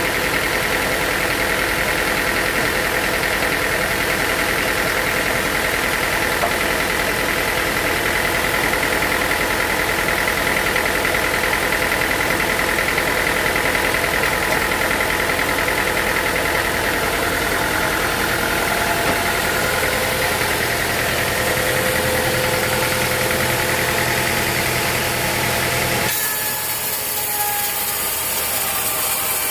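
Sawmill machinery running steadily: an engine-like drone with a steady high whine over it. Near the end the sound changes abruptly to lighter mechanical noise.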